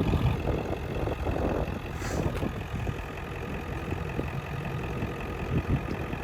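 Truck engine idling with a steady low rumble, and a short hiss about two seconds in.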